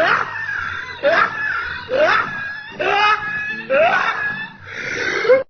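A monkey giving shrill laughing calls, about one a second, each sweeping sharply up in pitch. The calls cut off suddenly near the end.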